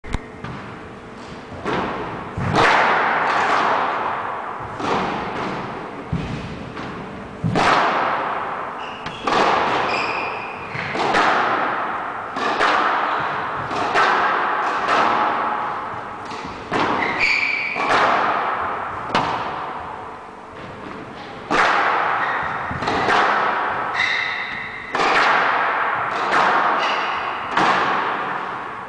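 Squash rally: the ball hit by racquets and smacking off the court walls about once every second or so, each hit echoing in the enclosed court, with brief high squeaks of court shoes on the floor a few times.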